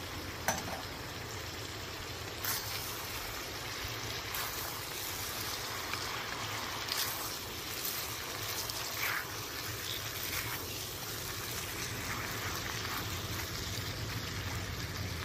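Potatoes and peppers frying in oil in a pot over a gas canister stove: a steady hiss, with a few short knocks or scrapes scattered through it.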